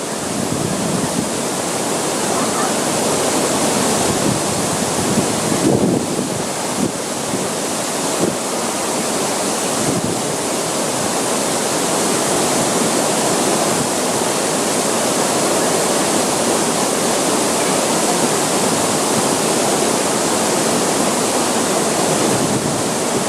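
Minoh Falls, a tall waterfall, pouring steadily: an unbroken rush of falling water.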